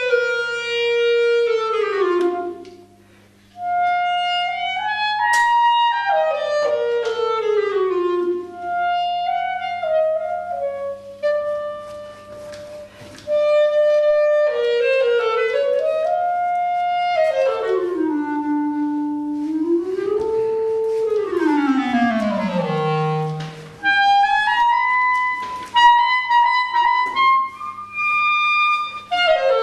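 Unaccompanied clarinet improvising a free melodic line, its notes often bending and sliding in pitch. There is a short pause a few seconds in, and about three-quarters through a long downward slide into the instrument's low register.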